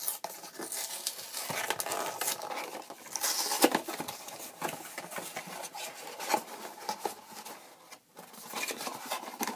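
Small cardboard toy box being opened and handled: rustling and scraping of the card flaps with many small clicks and taps as the contents are pulled out, loudest about three and a half seconds in.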